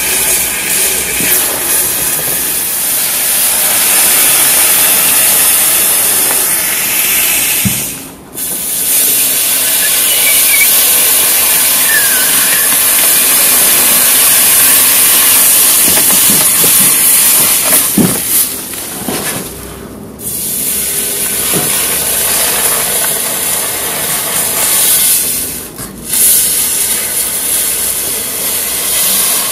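Red-hot kitchen knife hissing and sizzling steadily as it melts through a frozen tube of ice cream in its plastic wrapper, giving off steam. The hiss breaks off briefly three times.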